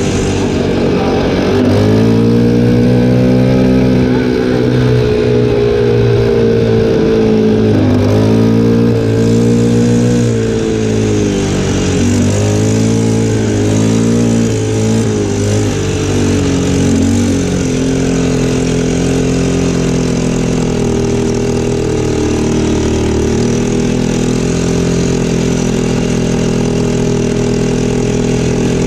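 ATV engine running as the quad drives along a dirt track, its pitch rising and falling several times with the throttle in the first half, then holding steadier.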